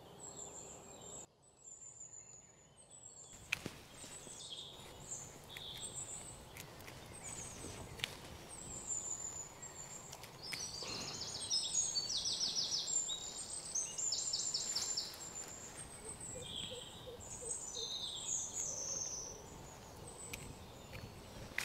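Small birds chirping and calling in the trees, with runs of fast trilled notes about halfway through. A few faint clicks and rustles of leaves and twigs as a custard apple is picked from its branch.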